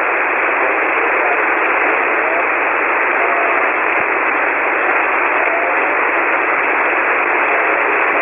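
Steady hiss of band noise from a ham radio receiver tuned to single-sideband on the 40-metre band, the sound squeezed into a narrow telephone-like range, with a few faint wavering tones in the noise.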